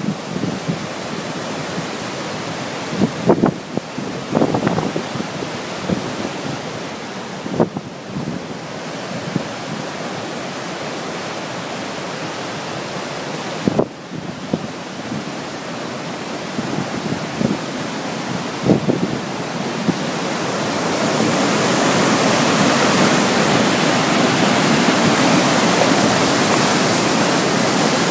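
River swollen by heavy rain rushing in whitewater over and between granite boulders, a steady dense noise of water with a few brief thumps. About two-thirds of the way in it grows louder and brighter as the churning whitewater comes close.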